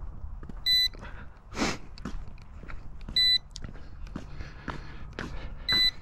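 RC low-battery warning beeper giving short, high beeps about every two and a half seconds, three in all, signalling the flight pack has run down to low voltage. A brief rustle about a second and a half in.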